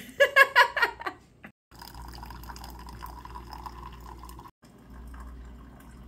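A short burst of a woman's laughter, then a Keurig single-serve coffee maker brewing: coffee runs steadily into a mug over a low hum from the machine.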